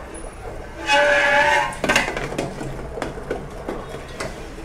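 Dry ice pressed against metal squealing: a loud, wavering, high-pitched screech lasting just under a second, about a second in, followed by a few light metallic clicks and knocks. The screech comes from carbon dioxide gas sublimating at the contact and setting the metal vibrating.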